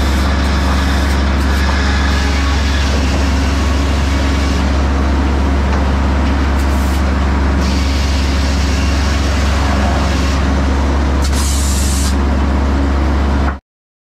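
Circle sawmill running: a steady, loud low drone of the mill's power unit and machinery under a broad rush of noise, with stretches of sharper hiss twice along the way. The sound cuts off suddenly near the end.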